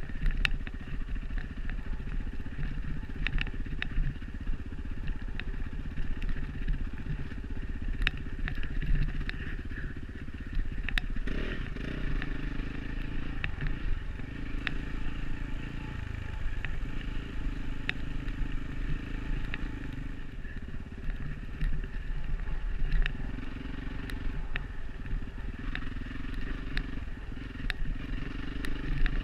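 Enduro dirt bike engine running along a trail, its revs rising and falling as the rider works the throttle. Frequent sharp knocks and rattles come through over the engine.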